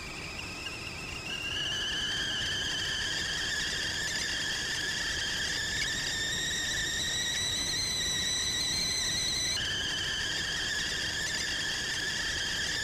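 A sustained high-pitched squealing tone, several pitches together. It climbs slowly over the first couple of seconds, then holds, and the upper pitch drops abruptly about nine and a half seconds in, over a faint low rumble.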